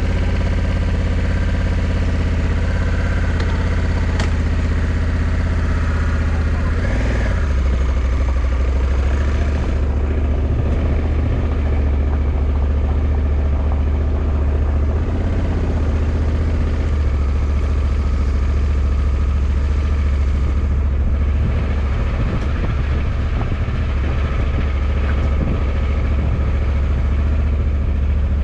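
Honda CRF1100 Africa Twin's parallel-twin engine idling steadily just after a start, with small shifts in its note around seven and seventeen seconds in.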